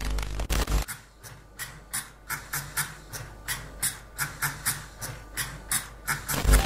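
Spray paint can being shaken, its mixing ball rattling in short strokes about three times a second. It opens with a loud low rumble and ends with a loud low thump.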